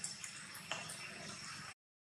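Faint background noise with a steady high-pitched tone and a few soft clicks, dropping to dead silence for about half a second near the end.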